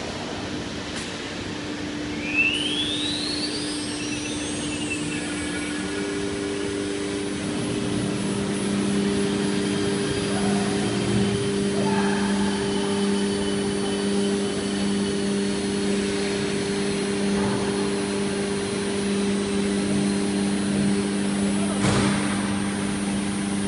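CNC router spindle spinning up with a rising whine a couple of seconds in, then running steadily as it cuts the wood sheet, over a steady machine hum. A short knock near the end.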